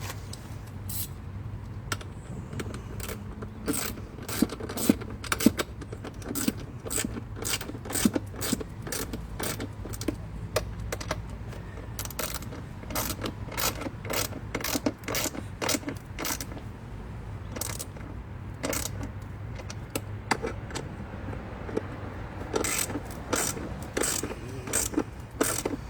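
Hand ratchet wrench clicking in spells of strokes, about two clicks a second, as a 12 mm nut on the saddlebag mount is run down and tightened.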